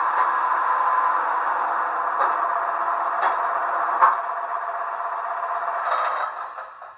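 Sound decoder of a Roco HO-scale model of the SBB Beilhack diesel snow blower playing its diesel engine running sound through the model's small loudspeaker, tinny and steady. A few sharp clicks sound over it, the loudest about four seconds in, and the sound dies away near the end.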